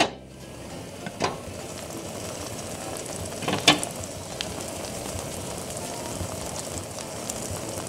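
Egg omelette frying gently in a pan, a steady soft sizzle. A glass pan lid clinks down at the very start, and two more sharp clicks follow, about one and about three and a half seconds in, the second one the loudest.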